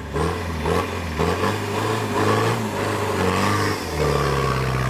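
A 4x4's engine running, its pitch rising and falling as it revs, then holding steadier near the end.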